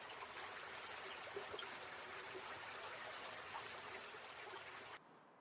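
Faint, steady rush of running water, cutting off abruptly about five seconds in.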